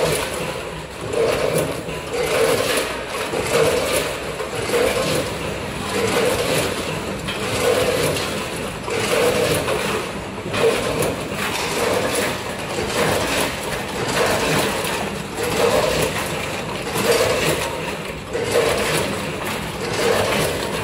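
Multihead combination weigher running on potato chips, cycling about once a second: a hum from its feeders and a clatter of hopper gates with chips rattling down through the stainless-steel buckets.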